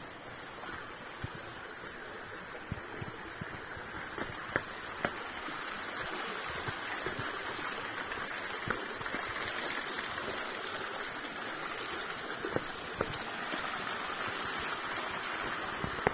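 A steady rushing noise that slowly grows louder, with scattered sharp taps of footsteps on rock.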